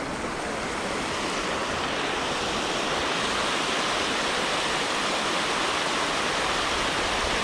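Water pouring over a concrete weir, a steady rushing of white water.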